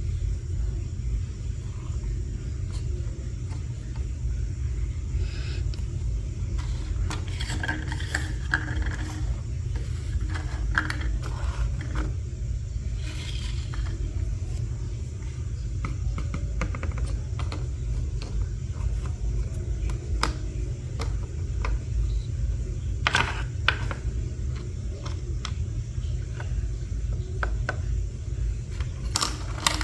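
Small plastic toy pieces being handled and unpacked by hand, giving scattered clicks, taps and scrapes over a steady low rumble.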